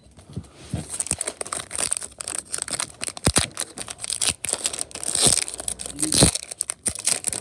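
Pokémon booster pack's foil wrapper crinkling and tearing as it is pulled open by hand, with a few dull handling bumps.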